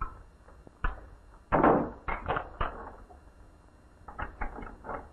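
A run of knocks and bumps, loudest in a short clatter about one and a half seconds in and again in a quicker patter near the end, over the steady hiss of an old film soundtrack.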